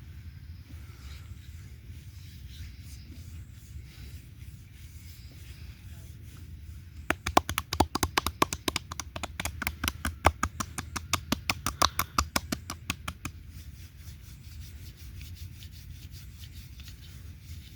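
Hands rapidly slapping and tapping on oiled skin as percussive massage strokes: a quick run of sharp slaps, several a second, lasting about six seconds, over a steady low hum.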